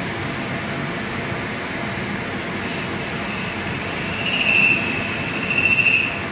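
Steady hum of workshop machinery. A little past halfway a high-pitched whine from the high-frequency PVC welding machine comes in for about two seconds. It is loudest at its start and again near its end.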